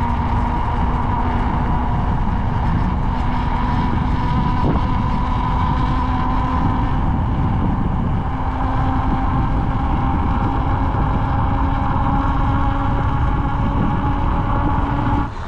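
Bicycle riding fast along an asphalt road: a steady rush of wind and rolling noise with a held whine that sinks slightly in pitch.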